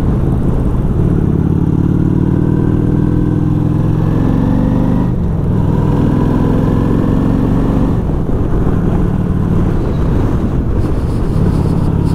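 V-twin chopper motorcycle engine pulling through the gears. Its pitch climbs for a few seconds, drops at a gear change about five seconds in, climbs again, then holds steady at cruising speed, with wind rumble on the microphone underneath.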